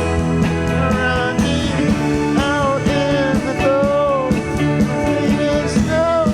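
Rock band playing live, with drums keeping a steady beat under a sustained bass and a lead melody that bends and slides in pitch.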